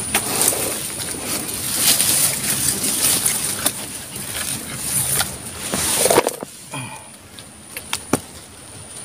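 Wind buffeting the microphone in gusts, dropping away suddenly about six seconds in, over a steady high-pitched whine; a few clicks and knocks follow near the end.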